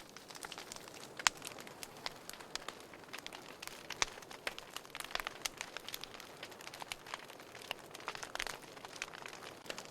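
Wood fire burning in a fireplace: irregular sharp crackles and pops over a soft hiss, with a louder pop about a second in and another about four seconds in.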